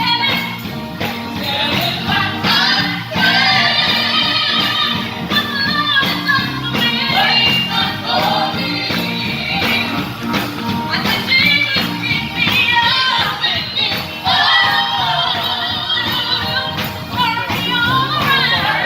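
Live gospel music: several voices singing held, sliding notes together over a band playing a steady beat.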